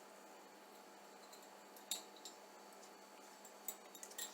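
Faint room tone broken by a few light clinks of small hard objects knocking together: one about two seconds in and a couple near the end.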